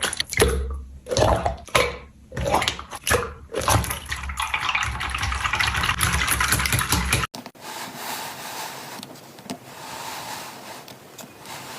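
Slime being squeezed and squished by hand, making irregular wet squelches and then a steady wet hiss. It cuts off abruptly about seven seconds in, and a quieter, fainter handling sound follows.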